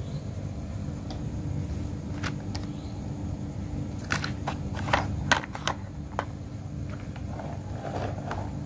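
Plastic toy trucks being handled and set down: light clicks and knocks, a cluster of them about four to six seconds in, over a steady low hum.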